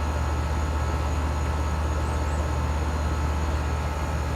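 A running air conditioner condenser unit: the compressor and condenser fan hum steadily.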